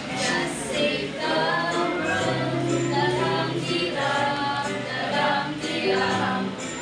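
Music with a choir singing, several voices together.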